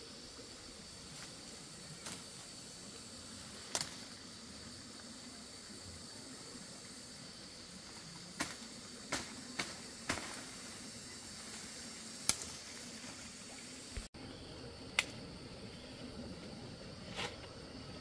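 Faint steady high hiss of outdoor background, broken by about nine sharp clicks and snaps spread irregularly through it.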